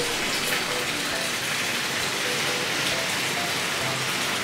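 Hot spring water pouring steadily from a stone spout into a ceramic bathtub, a continuous splashing.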